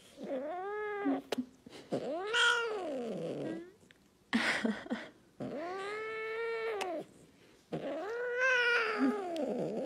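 Scottish Fold cat meowing: four long, drawn-out meows, each rising and then falling in pitch, with a short, harsher sound between the second and third.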